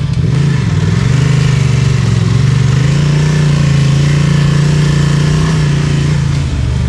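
Adventure motorcycle's parallel-twin engine running under way, its pitch climbing in the first second, then holding steady until it eases near the end.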